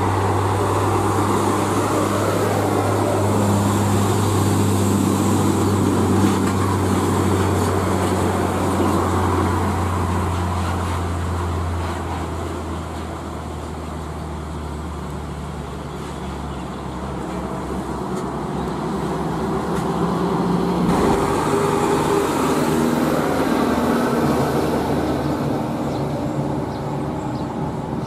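Heavy diesel truck traffic: a loaded Isuzu truck's diesel engine drones steadily as it passes, then fades away over the first half. About two-thirds of the way in another diesel truck's engine grows louder as it approaches.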